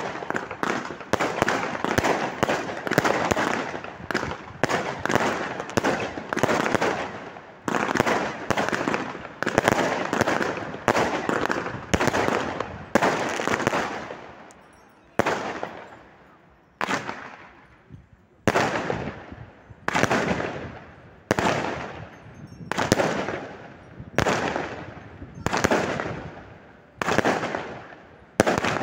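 Aerial firework shells bursting overhead: a rapid barrage of overlapping bangs for about the first half, thinning to single bangs about every second and a half, each trailing off in echo.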